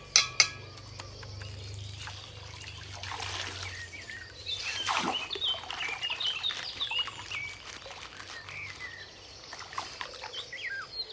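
Coloured water trickling and dribbling out of a popped plastic water pack, with small gurgling chirps and a sharp crackle of plastic about five seconds in.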